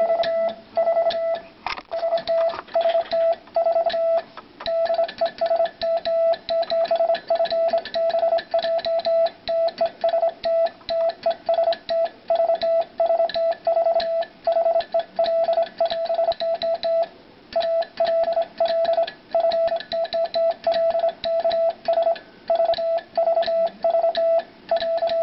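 Morse code sent on a 1954 Vibroplex Lightning semi-automatic 'bug' key: a single steady beep keyed on and off in dots and dashes, with the key's lever and contacts clicking along with it. There is a brief pause in the sending a little over two-thirds of the way through.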